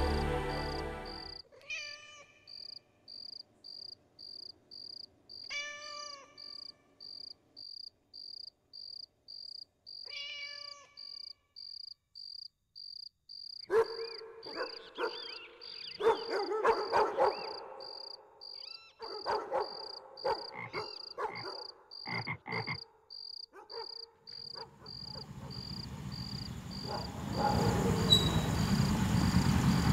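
Night outdoor ambience: an insect chirping steadily in high pulses about twice a second, under repeated animal calls, a few at first and then many in a busy stretch through the middle. Near the end the low rumble of a vehicle engine rises.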